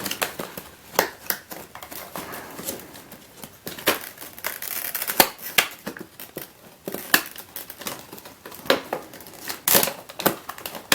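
Cardboard puzzle packaging being wrestled with by hand: irregular crinkling, scraping and clicking as the box is worked loose from its case.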